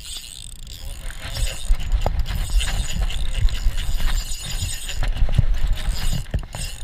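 Spinning fishing reel being cranked to wind in line, a quick run of gear clicking and rattling with knocking handling noise close to the microphone, starting about a second in.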